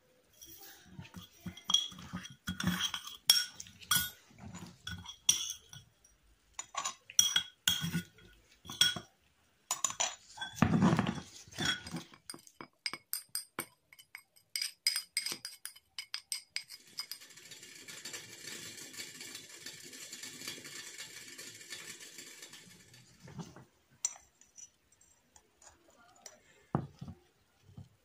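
A metal spoon clinking and scraping against a bowl holding dry garden cress seeds, many sharp ringing clinks in quick succession. About seventeen seconds in, a steady rush of dry seeds pours from the bowl into a small glass jar for about six seconds, followed by a few light clinks.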